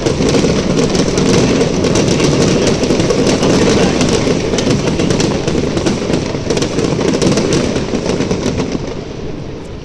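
Fireworks going off in a dense barrage: a continuous rumble of bursts with rapid crackling on top, dying down near the end.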